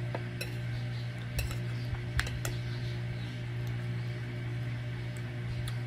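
Metal spoon clinking against dishes while eating, a handful of sharp clinks with the loudest a little over two seconds in, over a steady low hum.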